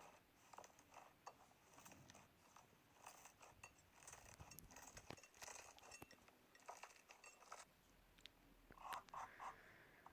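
Slime being squeezed and poked by hand: a faint, irregular run of small crackles and sticky pops, thickest near the end.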